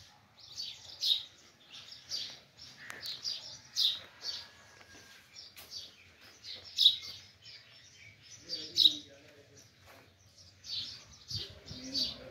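Small birds chirping, short high calls repeated every second or so, some louder than others.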